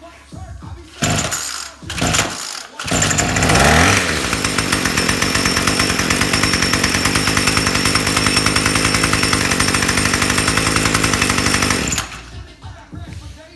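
Two-stroke string trimmer (weed eater) pull-started: two short pulls on the starter cord, then the engine catches and revs up about three seconds in. It runs steadily at high speed for about eight seconds before cutting off suddenly.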